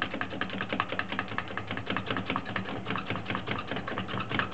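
A knife blade scraping spätzle dough off a wet wooden spätzle board in a quick, steady run of clicking strokes against the wood.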